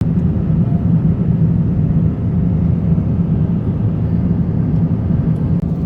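Airplane cabin noise: a steady low rumble of engines and airflow with a constant low hum.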